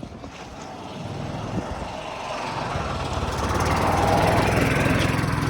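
Small petrol engine of a golf cart driving past, getting louder as it approaches, loudest about four seconds in, then easing slightly.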